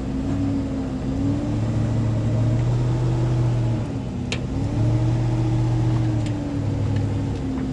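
Truck's 6.0-litre gas engine working under load while towing a heavy fifth-wheel toy hauler, its pitch rising and falling with the throttle: up in the first second, dipping about four seconds in, climbing again and easing off near the end.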